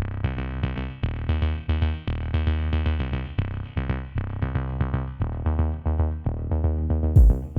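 Electronic background music: synthesizer notes over a deep bass and a drum-machine beat. Near the end comes one loud, sharp hit.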